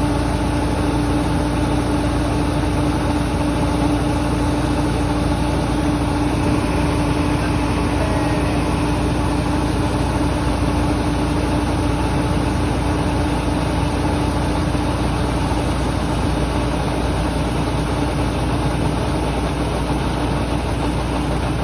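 Engine of a rice-harvesting machine running steadily at constant speed, with a strong steady hum.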